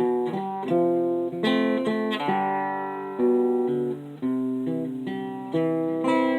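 Acoustic guitar playing the closing chords of a song, a new chord struck about once a second and left to ring.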